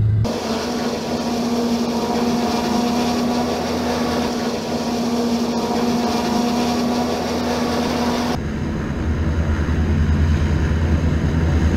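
Military landing hovercraft (an LCAC) running ashore: a steady mechanical hum with overtones over loud rushing noise from its engines, propellers and air cushion. About eight seconds in, the high rushing falls away and a deeper, lower hum takes over.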